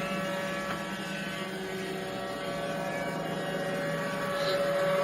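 A steady mechanical drone made of several held tones, growing slightly louder near the end.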